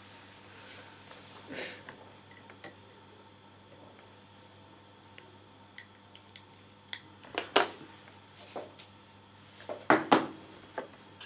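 Scattered small clicks and taps of hands handling tools and a clear plastic box at a fly-tying vise, with the loudest knocks coming in the second half, over a faint steady hum.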